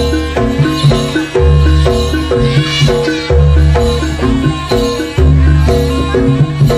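Javanese gamelan accompaniment for a jaranan dance: metallophones play a running melody of pitched notes over deep gong-like strokes that land about every two seconds. A brief high wavering melodic line rises above it about two and a half seconds in.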